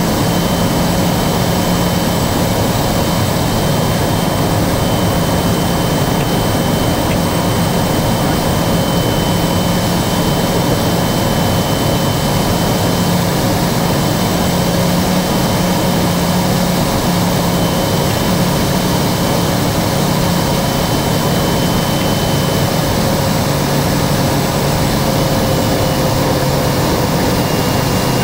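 Daher Kodiak's Pratt & Whitney PT6A turboprop engine and propeller running steadily on final approach for landing, heard through the cockpit windshield: a low propeller drone under a high, thin turbine whine. The pitch sinks a little in the last few seconds as the plane comes over the threshold.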